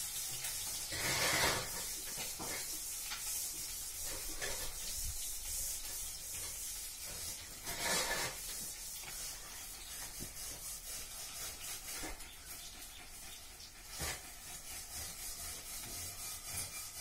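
Dog gnawing and chewing on a hard chew treat held in a hand: a scratchy, rasping scraping that comes in bouts, louder about a second in, about halfway through and again later.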